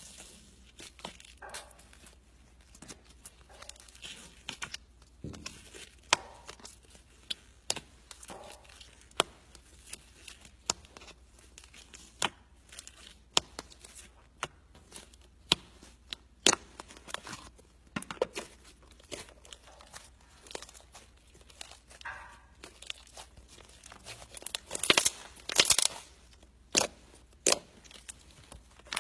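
Hands kneading, pressing and stretching soft slime, part of it mixed with foam beads, making irregular sharp clicks and pops that come thicker and louder near the end.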